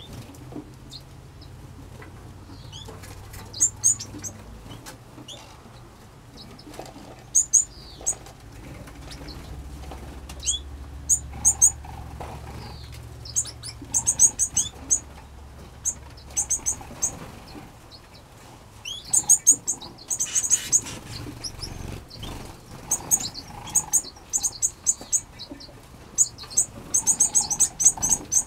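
Small aviary finches chirping: short, very high-pitched chirps in quick clusters, coming on and off throughout, over a faint low rumble.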